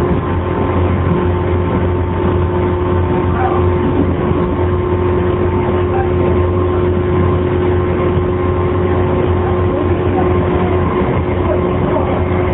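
Running sound inside a JR 115-series electric motor car (MoHa 115-2021) at steady speed: a constant hum and steady mid-pitched motor tone over wheel and rail noise, with the air conditioning running. The car is known for an abnormal wind-like noise that the air conditioning partly masks.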